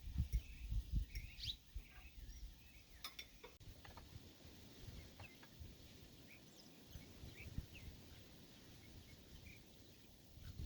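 Birds giving short, scattered high chirps. Low rumbling thumps in the first couple of seconds and again at the very end.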